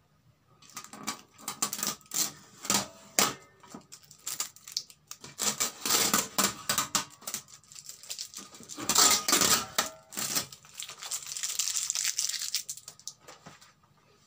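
Leftover adhesive tape being peeled, torn and scraped off the bare back panel of an LED TV's backlight, clearing the old tape before new LED strips go in. It comes as irregular crackling, tearing and clicking, loudest about nine seconds in, and turns to a steadier rubbing near the end.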